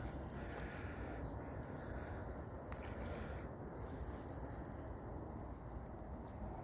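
Fishing reel clicking and ratcheting in runs of rapid ticks as line is wound and pulled against the drag while a hooked brown trout is played, over a steady low rumble.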